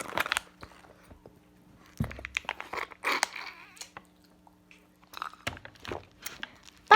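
Close-up chewing and crunching of food, with wet mouth clicks coming in irregular bursts.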